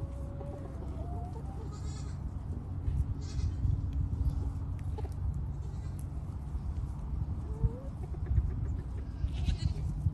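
Pygmy goats bleating a few times over a steady low rumble.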